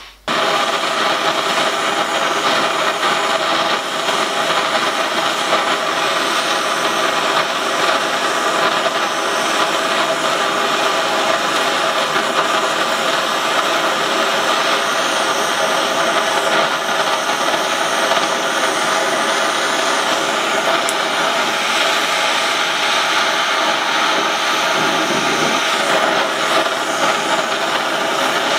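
Gas torch burning with a loud, steady rush of flame, heating the brass end fitting of a copper boiler stay to silver-soldering heat.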